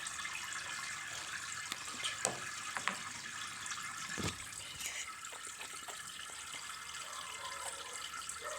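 Steady running-water noise from a fish tank, with a few soft knocks.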